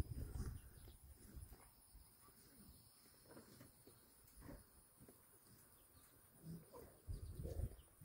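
Near silence: faint outdoor ambience with a few soft rustles and bumps, a little more just after the start and near the end.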